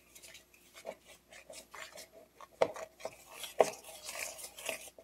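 Hand whisk stirring a thick powdered-sugar and condensed-milk dough in a mixing bowl: irregular scraping and clicking, with two louder knocks about two and a half and three and a half seconds in.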